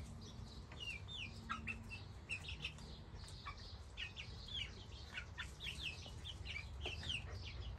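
Young hens, about two months old, peeping and chirping: a steady run of short, high, falling chirps from several birds.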